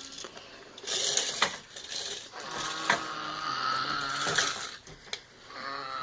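Rough, drawn-out growling in a few long stretches with short breaks between them.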